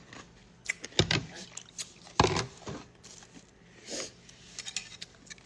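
A few sudden knocks and handling noises from things being moved about on a tabletop, the loudest just over two seconds in, with faint ticks between.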